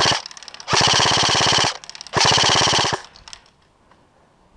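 Airsoft rifle firing on full auto in rapid, evenly spaced shots: the end of one burst, then two bursts of about a second each, followed by a few faint clicks.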